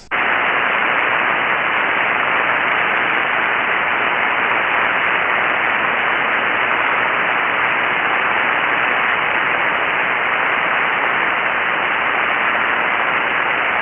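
Steady hiss of 40-meter band noise from a ham radio receiver tuned to single-sideband with no station transmitting. The top end is cut off by the receiver's filter.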